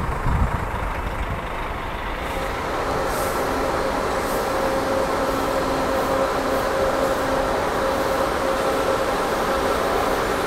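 Marcopolo New G7 coach idling at a bus-station platform: a steady engine hum with faint steady tones over it.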